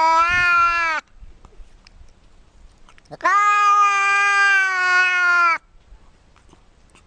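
A grey domestic cat giving long, drawn-out meows. One call ends about a second in, and a second held call of over two seconds begins with a quick upward swoop about three seconds in, then stays at a steady pitch.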